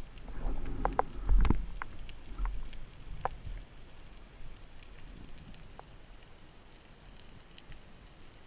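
Underwater sound through a GoPro's waterproof housing as a spearfisher moves: a low rumble with a run of knocks and clicks in the first few seconds, the loudest about a second and a half in, then a faint hiss with scattered light ticks.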